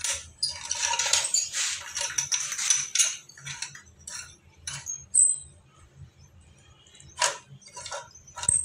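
Chrome wall flange of a wall mixer being pushed and turned over its pipe fitting against the tiles: metallic scraping and rubbing for about three seconds, then a few separate metal clinks, one with a short ringing ping.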